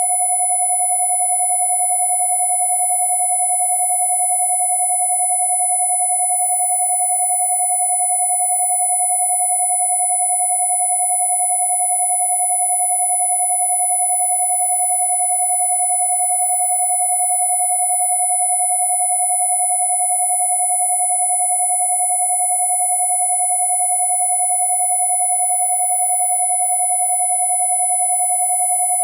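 Two steady electronic sine tones held together, 727 Hz and 10,000 Hz: a clear mid-pitched tone with a very high, thin whine above it and faint overtones, all unchanging.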